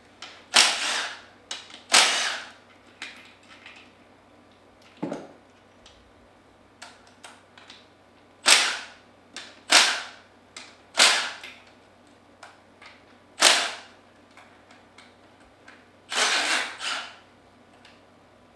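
Cordless impact tool run in about eight short bursts, each under a second, on the bolts of a Comet P40 diaphragm pump.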